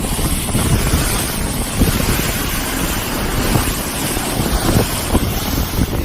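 Wind buffeting the microphone aboard a moving boat, over a steady rush of water; the noise gusts irregularly.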